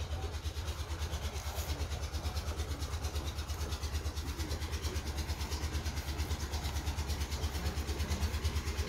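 A diesel engine running steadily at idle, its low exhaust beat thumping evenly and rapidly, growing a little louder near the end.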